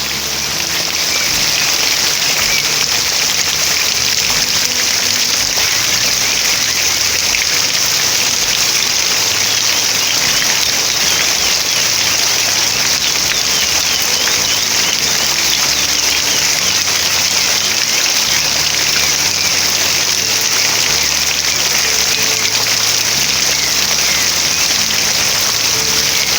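Steady rain falling in a continuous hiss, with small birds chirping briefly now and then.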